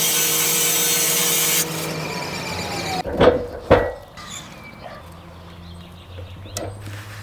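A power tool runs loudly, stops about a second and a half in and spins down with a falling whine, followed by two loud wooden knocks about half a second apart.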